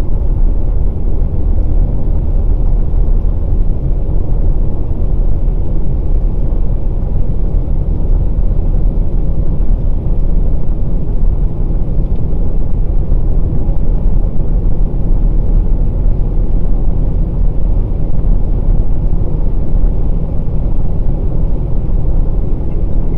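2020 Volkswagen Passat Variant's 1.6 TDI four-cylinder diesel and tyres on a wet road, heard as a steady low driving rumble at cruising speed.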